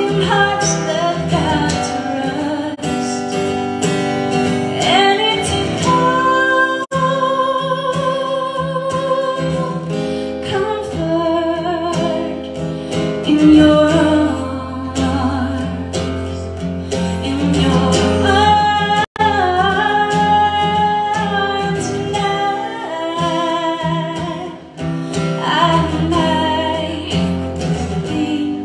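Live acoustic music: a woman singing a slow song over strummed acoustic guitar, with a cello playing held low notes. The recording drops out for an instant twice.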